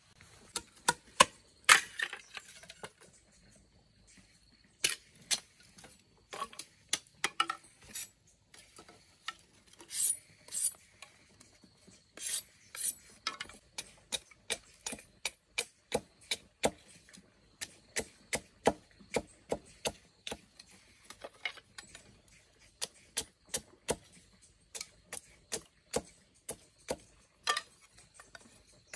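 A long series of short, sharp knocks, scattered at first and settling to about two a second in the second half.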